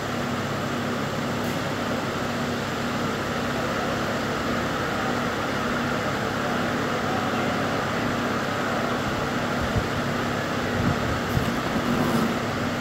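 Steady mechanical hum with a constant low tone, like a running fan or ventilation unit. A few light clicks and taps near the end come from wires being handled at the panel's terminals.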